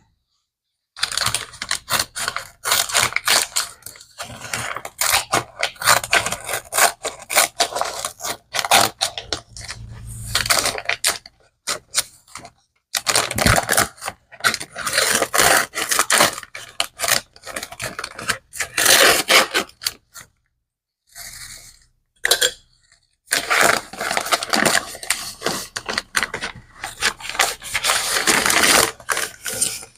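A package being opened by hand: the packaging is scraped, torn and rustled in irregular bursts, with a few short pauses.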